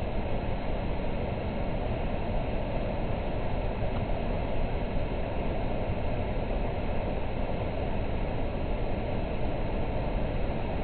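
Steady, even rumble of city background noise with no distinct events in it.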